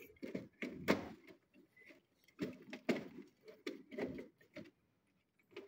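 Scattered light clicks and knocks of hardware and cables being handled in a floor box.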